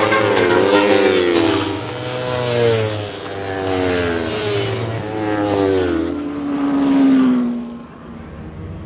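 Sport motorcycles accelerating hard through the gears, the engine note rising in pitch and dropping back at each upshift, then falling away sharply near the end.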